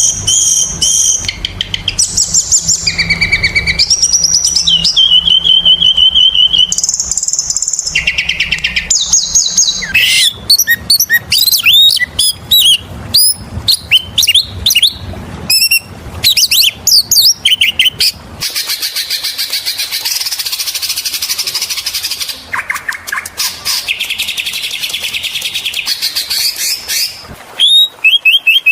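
Oriental magpie-robin (kacer) singing continuously and loudly: a varied run of clear whistled phrases, quick chattering notes and sliding calls, with a long scratchy, buzzy stretch in the second half.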